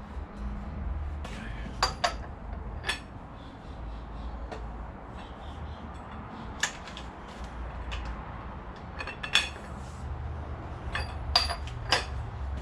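Metal tools and parts being handled: sharp clinks and knocks at irregular intervals, bunching into quick clusters in the middle and near the end, over a low background rumble.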